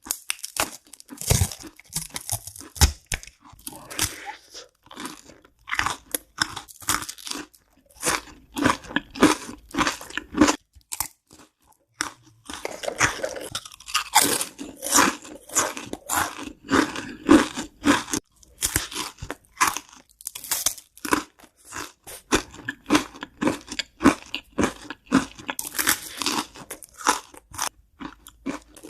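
Close-miked crunching and chewing of crisp food, one crackly bite and chew after another, in steady runs with short pauses.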